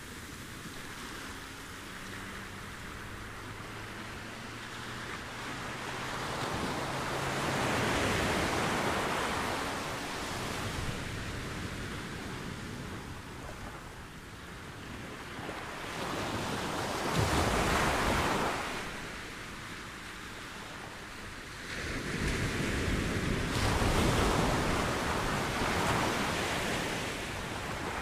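Ocean waves breaking and washing up the beach, with three slow surges swelling and fading about eight, seventeen and twenty-four seconds in.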